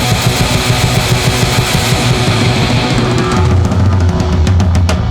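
Loud heavy rock band playing: distorted electric guitar and bass over a fast drum kit, with a run of sharp drum hits near the end.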